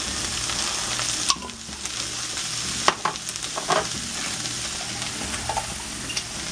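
Chopped cabbage sizzling as it fries in bacon grease and oil in a skillet, a steady hiss with a few light clicks and knocks.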